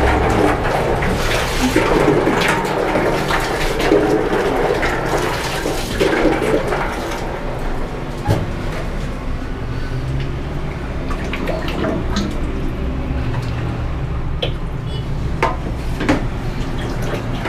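Liquid pouring and sloshing, a steady rushing sound with scattered small clicks.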